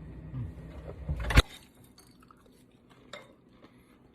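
Kitchenware being handled: a low rumble of handling, then a single sharp clink about a second and a half in, and a fainter knock a little later.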